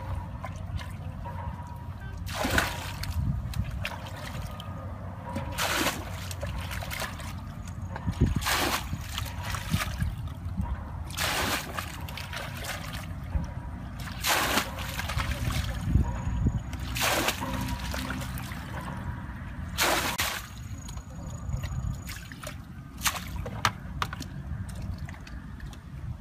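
Muddy water scooped with a plastic bucket and dumped out, each bucketful splashing and sloshing onto the ground, a splash roughly every three seconds.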